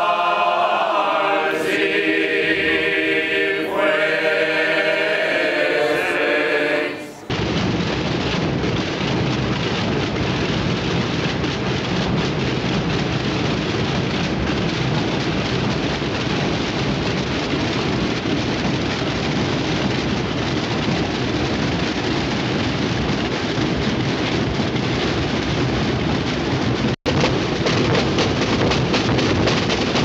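A group of men singing an unaccompanied chant in harmony, which cuts off about seven seconds in and gives way to hundreds of drums beaten together in a dense, continuous roll, broken by a brief gap near the end.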